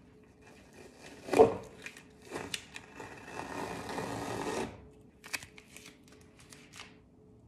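Painter's tape being peeled off a freshly painted canvas: a sharp loud rip about a second and a half in, then a longer rasping peel, followed by a few small crackles and ticks as the strip comes free.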